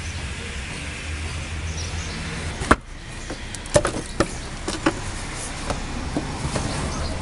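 Renault Mégane Scénic's plastic wheel-arch liner being pulled and flexed by hand, with a sharp snap about three seconds in and several lighter clicks and crackles after it as the liner comes away. A steady low hum runs underneath.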